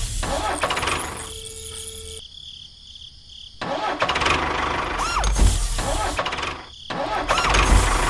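Tractor engine running, with a strong low rumble that drops away for about a second and a half in the middle and again briefly near the end. A short tone rises and falls once about five seconds in.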